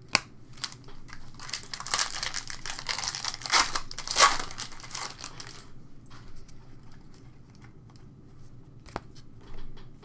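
Foil wrapper of a trading card pack being torn open and crinkled. The crackling starts about a second and a half in and lasts about four seconds, loudest near the end. A few sharp ticks of cards being handled come at the start and near the end.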